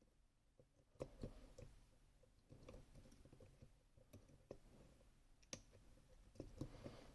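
Faint, irregular small clicks and taps of tools working in a Rosengrens 32A81H lock, with a few sharper clicks about a second in and again near the end, over a faint low hum.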